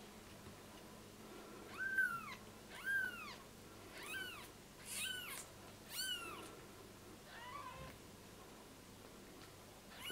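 A newborn kitten mewing repeatedly: about six short, high calls that rise and fall, roughly a second apart, the last of them fainter, then one more right at the end.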